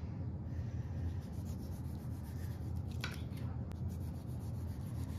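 Kitchen knife slicing a tomato into rounds on a granite countertop: soft rubbing, sawing strokes, with a short sharper scrape about three seconds in. A steady low hum runs underneath.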